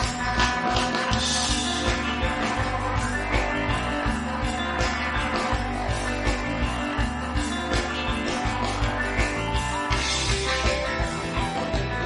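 Background rock music with guitar and a steady beat.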